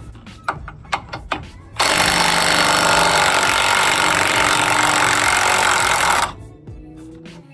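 Cordless impact wrench hammering on a suspension bolt for about four and a half seconds, starting about two seconds in and cutting off suddenly. It is preceded by a few sharp clicks and knocks of metal parts being handled.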